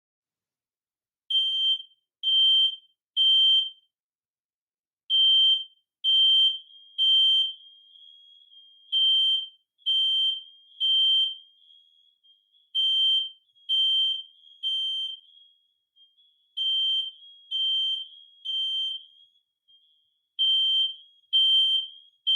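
Smoke alarm sounding its evacuation signal: groups of three loud, high-pitched beeps, the groups repeating about every four seconds.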